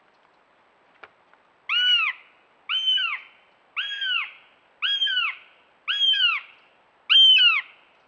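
Northern goshawk fledgling calling: six loud, drawn-out wailing calls about a second apart, each rising and then falling in pitch.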